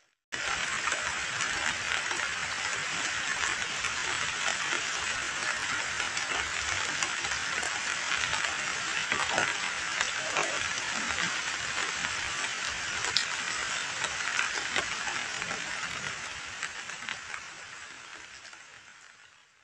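Heavy rain falling onto a pool of muddy water: a dense, crackling hiss of countless drops striking the surface. It starts abruptly just after the beginning and fades out toward the end.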